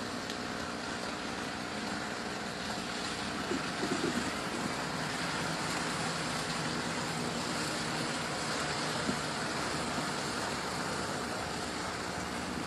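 Winged sprint car engines running at a slow parade pace as the cars circle the dirt track, a steady rumble. A few short knocks stand out about four seconds in.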